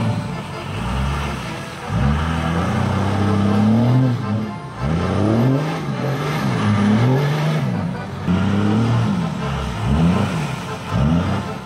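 Dodge Ram diesel pickup's engine revving up and falling back about six times as the truck spins its rear wheels on loose dirt, with the hiss of the spinning tyres and spraying dirt underneath.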